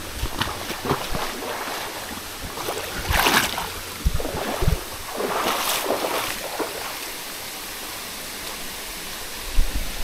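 Water rushing in a jungle stream, with two louder splashing surges about three and six seconds in and a few low knocks.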